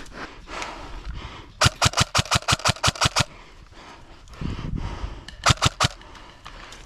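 Airsoft replica firing two rapid strings of shots, about eight a second: a string of about a dozen, then a shorter one of about five a couple of seconds later.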